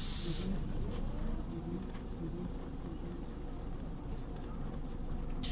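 Interior of a Scania OmniLink city bus: steady low diesel engine and road rumble. A loud compressed-air hiss from the bus's pneumatics cuts off about half a second in, and another starts at the very end.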